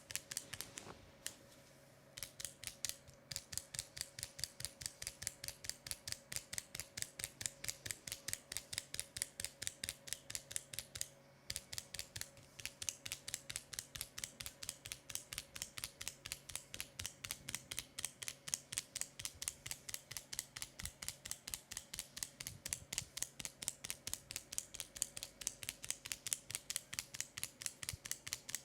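Sharp clicks repeating evenly, about four a second, with short pauses about a second in and again about eleven seconds in.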